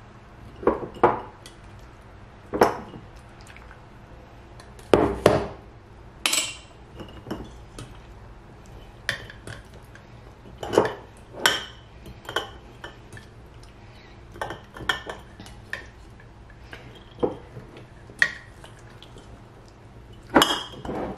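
Glass pint canning jars and a stainless steel bowl clinking and knocking as roasted, peeled green peppers are packed into the jars by hand: irregular light knocks, some with a short glassy ring.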